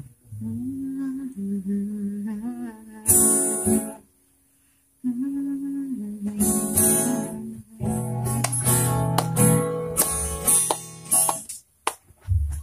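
Acoustic guitar strummed in short runs, with a voice holding long wordless notes; the playing stops for about a second near the middle.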